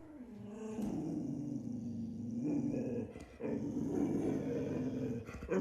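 Dog growling low in two long stretches, with a short break about three seconds in.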